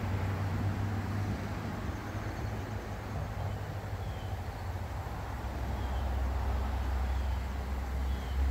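Steady low outdoor rumble, like distant background noise, with a few faint short high chirps.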